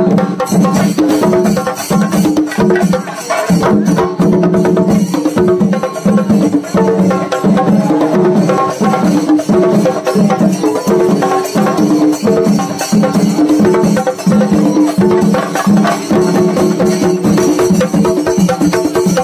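Shinkari melam ensemble playing: chenda drums beaten in fast, dense strokes with cymbals clashing, under a melodic tune that moves from note to note.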